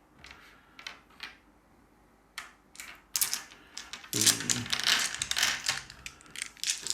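A handful of dice being gathered and rolled, clattering on a tabletop. After a few scattered clicks, it becomes a dense run of quick rattling clicks from about two and a half seconds in.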